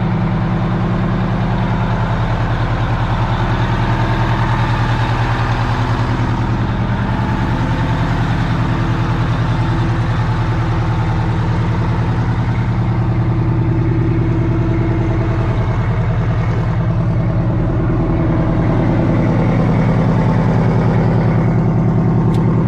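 Detroit Diesel engine of a Kenworth semi tractor idling steadily, getting a little louder near the end.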